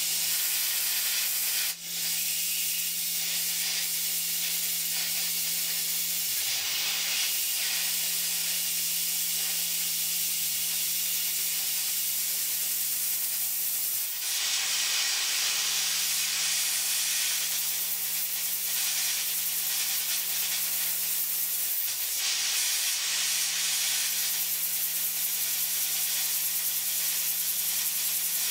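CNC mill drilling a pin hole with a small carbide drill under coolant: a steady hiss of coolant spray over the steady hum of the spindle. The hum breaks off briefly about every eight seconds, and there is a short click about two seconds in.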